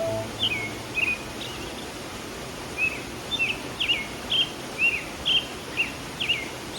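Songbird chirping: short, quick down-slurred chirps repeated about twice a second, with a pause of about a second early on, over the steady rush of a flowing stream.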